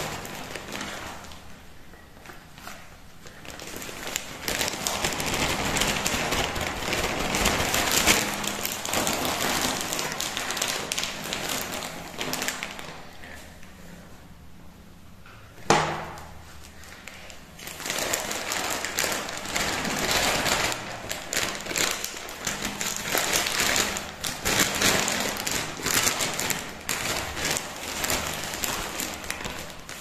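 Gloved hands scooping and crumbling loose potting soil into a small plastic pot: long stretches of gritty rustling and crackling, with one sharp thump about halfway through.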